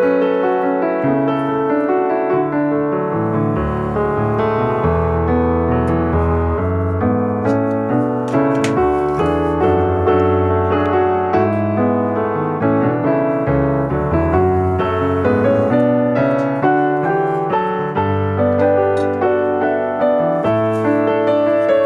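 Piano music: a steady stream of notes over a held bass line.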